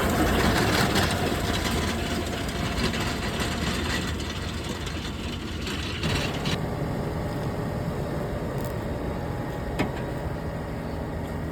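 Fendt 828 tractor's diesel engine running as it pulls a crimper roller across the field, a steady low engine sound that gets quieter over the first few seconds.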